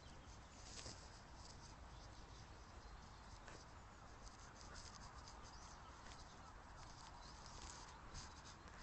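Near silence: a faint outdoor background with soft, irregular scratching ticks close to the microphone.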